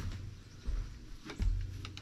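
Footsteps thudding on a wooden floor, four or so dull thuds, with a couple of light clicks as an angle grinder is picked up and handled; the grinder is not running.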